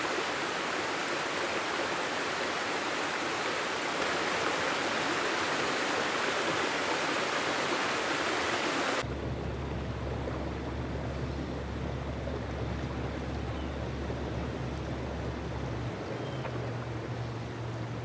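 Steady, even rushing noise with no distinct calls. About halfway through it cuts to a quieter hiss over a steady low hum.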